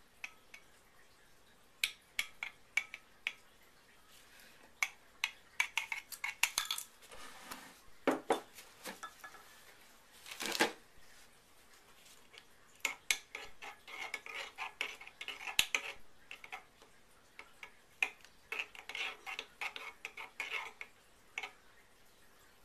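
A utensil stirring a liquid cleanser in a glass measuring cup, clinking and tapping against the glass in irregular bursts, with one louder clatter about ten seconds in. The cleanser is being mixed after Crothix thickener was added.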